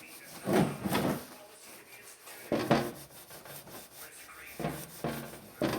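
Hand rubbing and scrubbing at grime on a metal lathe, in a few separate strokes about a second to two apart.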